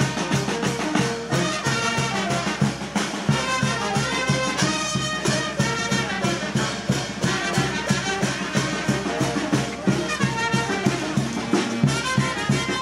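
Brass band music playing a melody over a steady beat.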